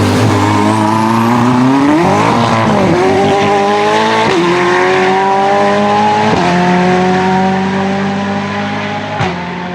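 Race car engine accelerating hard through the gears, its pitch climbing and then dropping sharply at upshifts about four, six and nine seconds in.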